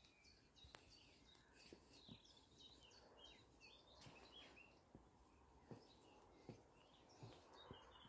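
Faint songbirds chirping and twittering continuously, with soft irregular footsteps on a wooden boardwalk.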